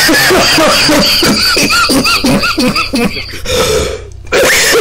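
A person's voice blaring through an open call microphone, loud and distorted: a rapid string of short rising-and-falling vocal calls, about three a second, then after a brief drop another loud burst near the end. The noise drowns out the lesson audio and is a deliberate disruption of the online class.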